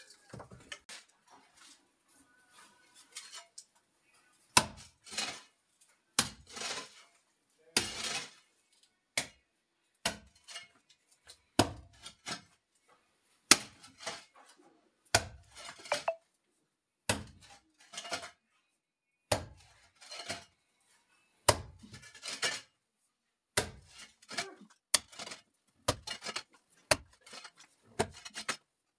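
Iron hoe chopping into very hard-packed earth floor over and over, about once a second from about four seconds in, each blow a sharp metallic strike followed by a short scrape of loosened soil.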